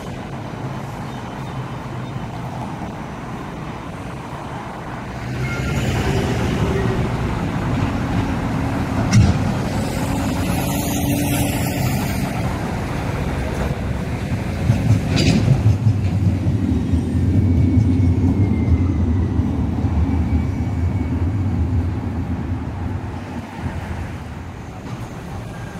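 Supercapacitor trams running past on street track amid road traffic. The rumble swells for most of the middle, with two sharp knocks about six seconds apart.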